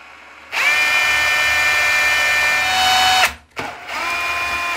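Cordless drill running under load at the metal wall profile of a shower screen: one steady whine of nearly three seconds that cuts off, then a shorter, quieter second run.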